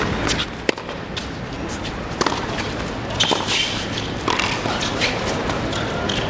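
Tennis rally: a run of sharp, irregularly spaced racket strikes and ball bounces over a steady background hiss.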